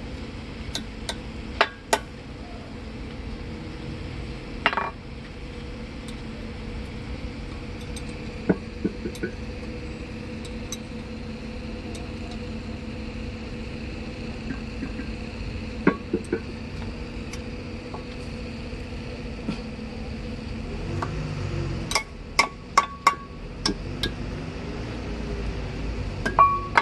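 Steel hand tools clinking against a Tata truck differential carrier as a spanner and hammer work the crown wheel bearing adjuster: scattered sharp metallic clinks, with a quick run of several about 22 seconds in, over a steady background hum.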